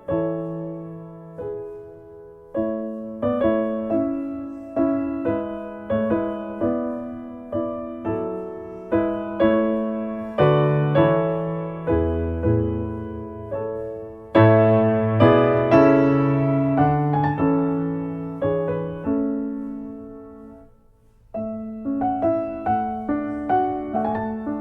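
Background piano music: a slow solo piano piece, note after note struck and left to ring, that fades out about twenty seconds in and then starts again.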